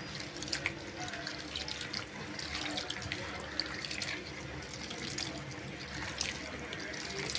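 Hands swishing and rubbing sliced bitter gourd in a bowl of water: steady sloshing with frequent small splashes as the slices are stirred and washed.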